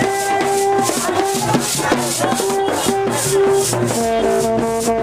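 Street procession music: hand drums, a steady shaker rhythm of about two to three strokes a second, and blown horns playing held notes, with several notes sounding together near the end.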